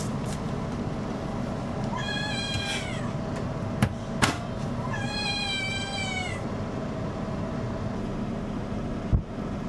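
A cat meowing twice, each meow about a second long and dropping in pitch at the end, over the steady whir of a hair dryer as it is blow-dried. A few sharp clicks sound in between and near the end.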